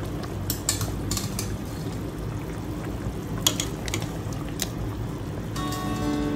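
Soup bubbling at a boil in a stainless steel pot while tongs turn the meat, knocking and clinking against the pot several times, the loudest about three and a half seconds in. Background music comes back near the end.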